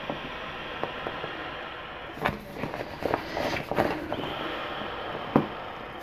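Crinkling and rustling of a vinyl roll-up air-pump bag as hands squeeze and roll it to push air into an inflatable foot rest pillow. There is a steady hiss behind it, and scattered crackles come in small clusters.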